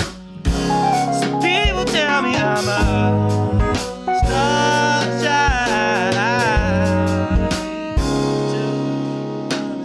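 Live jazz-influenced band of horns, drums, bass guitar and keys playing an instrumental passage. A melody line bends and slides in pitch over steady bass and drum hits, and the drum hits thin out near the end as held chords ring.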